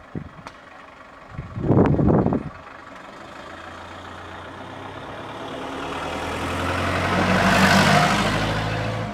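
Engine of a Toyota HiAce van running as it drives slowly past at close range, growing louder to its loudest about eight seconds in, then fading. A short rumble of wind on the microphone about two seconds in.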